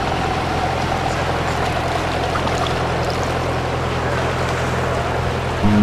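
Steady drone of a boat motor over a wash of water. Music comes in just at the end.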